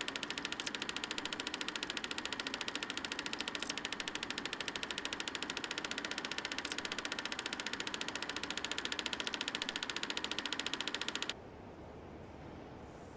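Film projector running with a fast, even mechanical clatter. It cuts off abruptly near the end, leaving a quiet steady hiss.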